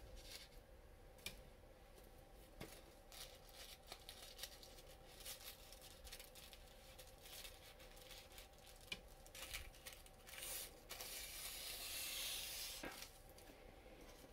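Faint rustling and crinkling of tissue paper being smoothed flat by hand over a sheet of printer paper, with scattered small crinkles and a louder stretch of rustling near the end.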